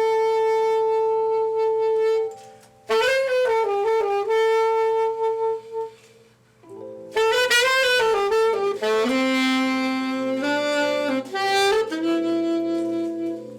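Saxophone playing a slow, lyrical melody: a long held note, a short break, then flowing phrases separated by brief pauses.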